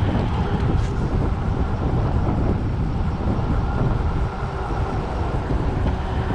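Wind buffeting the microphone during a fast trail descent, with a steady low rumble of the ride over the ground.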